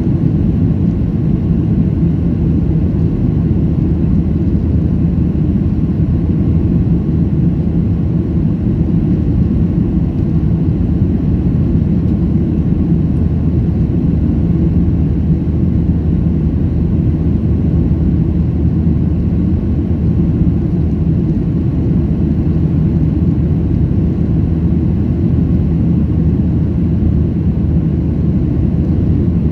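Cabin noise of a Boeing 737-800 climbing after take-off: the steady low drone of its CFM56-7B turbofan engines and rushing air, heard inside the cabin from a seat over the wing.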